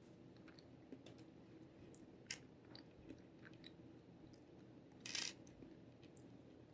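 Near silence with a few faint clicks of clear puzzle pieces being handled and tried together, and a short hiss about five seconds in.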